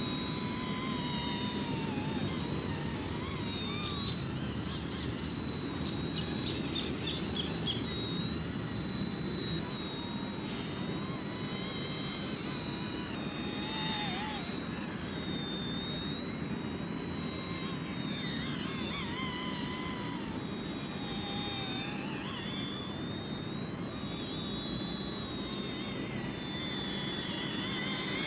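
ERA C159 mini RC helicopter in flight: a steady, high-pitched electric motor whine with a rushing rotor whir, its pitch dipping and rising slightly now and then as it is flown.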